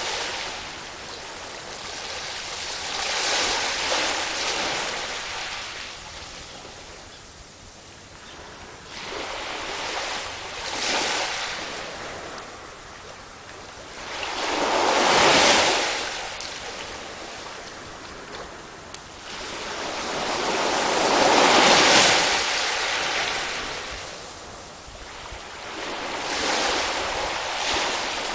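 Sea waves washing onto a beach, the surf swelling and fading in slow surges every five to seven seconds, the two largest in the second half.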